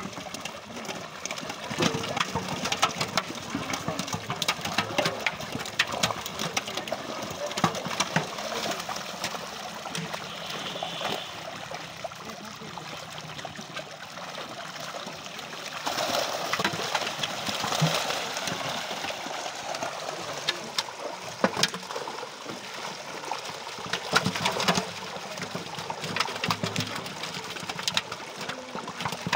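A netted mass of fish thrashing and splashing in shallow pond water: a constant churning splash broken by many sharp slaps of fish against the water, growing louder in spells.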